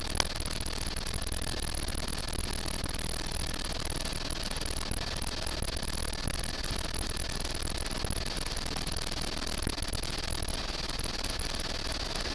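Helicopter turbine and rotor noise heard from inside the cabin in flight: a steady, unbroken rushing drone with a faint high whine, and one short click just after the start.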